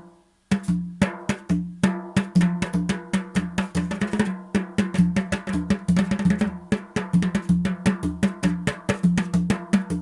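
Drum-led music: a busy, steady run of drum strikes over a sustained low bass note, starting about half a second in.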